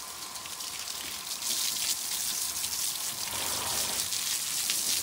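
Water from a garden hose spraying onto a foal's wet coat: a steady hiss and patter of spray that grows louder about a second and a half in.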